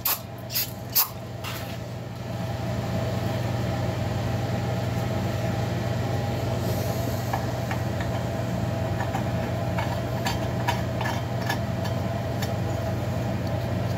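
Aerosol can sprayed in a few short bursts in the first second or so, then a steady mechanical hum for the rest, with light clicks of the metal cylinder being handled near the end.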